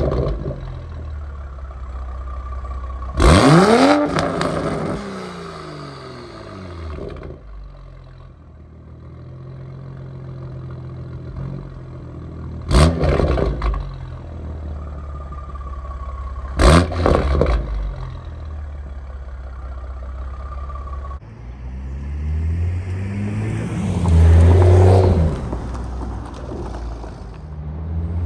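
2021 Toyota Supra's turbocharged inline-six, through a catless downpipe and Remark exhaust, running between three short sharp revs, then a longer swell in revs near the end. The owner calls it a deep, throaty sound.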